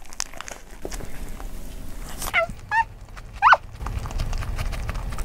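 Biting into and chewing a paper-wrapped sandwich: small clicks and crinkles from the bite and the paper wrapper, then three short high-pitched squeaky sounds that rise and fall, about two and a half to three and a half seconds in. A low rumble runs through the last second and a half.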